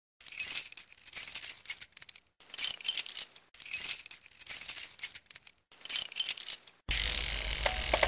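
Bright, high-pitched metallic jingling and tinkling in repeated bursts, an intro sound effect; at about seven seconds it gives way to a steady backing track.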